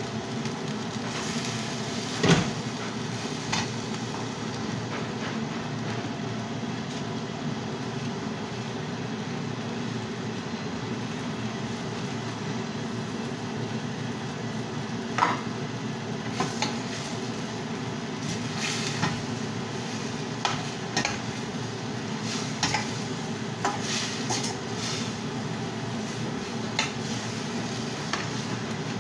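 Food sizzling in a stainless-steel frying pan over a gas burner, with a spatula stirring and scraping and clicking against the pan every so often. A sharp knock about two seconds in is the loudest sound, with another about halfway through.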